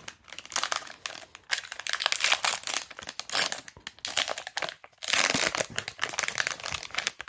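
Trading-card pack wrappers being torn open and crinkled, in irregular rustling bursts, loudest about two-thirds of the way through.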